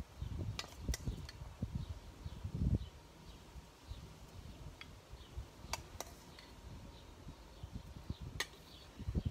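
A serving utensil clinks lightly against a stainless steel bowl as salad is scooped from it onto a plate. There are three quick clinks in the first second and a half, two more about halfway through and one near the end, with a low rumble under the first three seconds.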